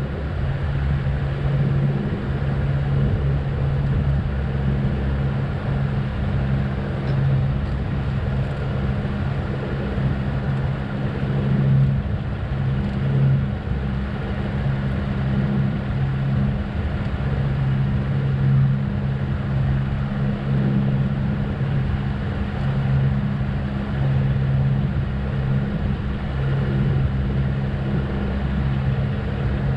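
Small boat's motor running steadily while cruising, a constant low drone.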